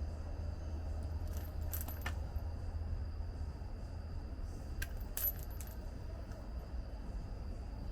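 Small metal pieces clinking with a bright ring, in two brief clusters about three seconds apart, over a steady low rumble.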